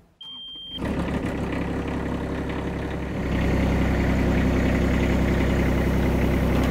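Ditch Witch SK755 mini skid steer's engine running steadily, getting louder about three seconds in as the loader arms and bucket are lowered. A short high beep comes just before the engine sound starts.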